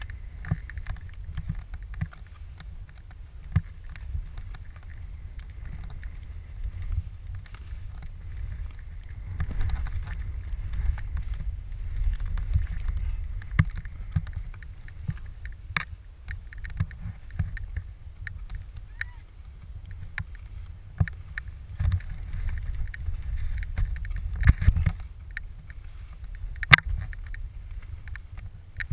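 Skis swishing through deep powder snow, heard on a pole-held camera as a steady low rumble with a hiss that swells and fades with each turn. Sharp knocks from the pole and camera mount come now and then, the loudest near the end.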